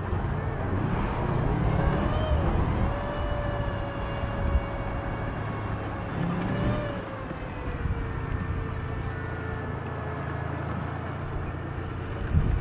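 WZT-2 armoured recovery vehicle on a T-55 tank chassis, its V12 diesel engine running with a steady low rumble as the tracked vehicle drives over dirt. A steady whine rides over it, briefly rising and falling in pitch twice.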